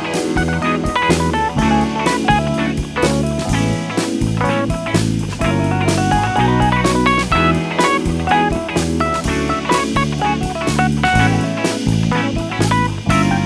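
Instrumental break of a pop song: guitar playing a melodic line over bass and a steady drum kit beat.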